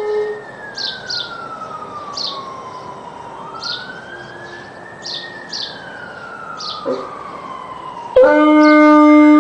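A siren wails, its pitch slowly sliding down, up and down again, under short high chirps. A dog's howl trails off at the start and a brief low call comes about 7 seconds in. Near the end a dog breaks into a loud, steady howl, answering the siren.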